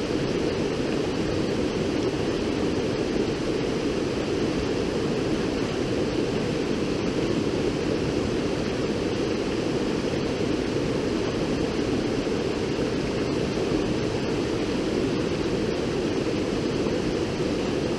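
A river running: a steady, unbroken rush of water that does not change.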